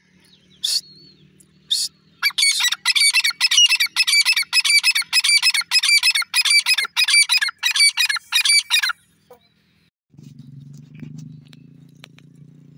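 Grey francolin (teetar) calling: two short sharp notes, then a loud, fast, shrill run of about three notes a second for some seven seconds that stops abruptly. A low steady hum follows near the end.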